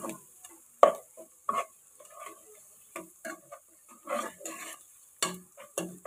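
A spatula stirring and scraping fried onions, garlic and ginger around a nonstick pot, in irregular strokes with a few sharp knocks against the pan, over a faint sizzle of hot oil.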